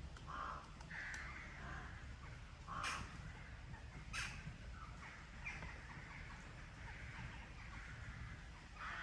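Crows cawing, a scattered series of short calls, with two sharp clicks about three and four seconds in.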